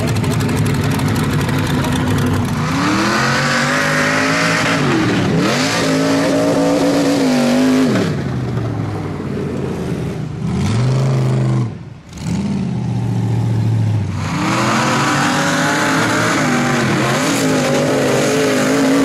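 Rock bouncer buggy's engine revving hard, its pitch climbing and falling again and again, with a short break about twelve seconds in.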